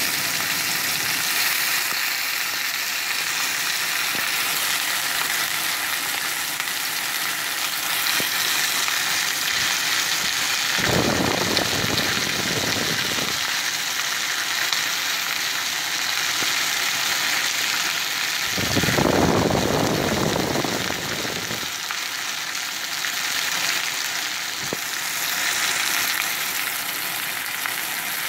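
Beef steak searing in a cast-iron skillet: a steady, dense sizzle of fat and juices frying. Twice, a lower, duller noise joins in for two or three seconds.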